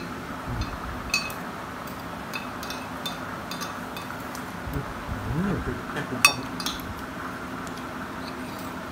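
Cutlery clinking against dishes now and then during a meal, a few light taps and one sharper clink about six seconds in, over a steady low hum.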